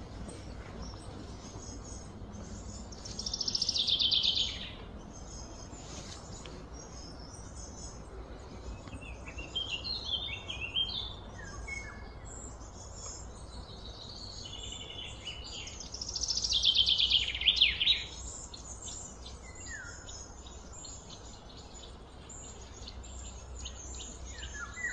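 Birds singing outdoors: two loud, fast trills that fall in pitch, about four seconds in and again near seventeen seconds, with scattered chirps between and steady high chirping behind.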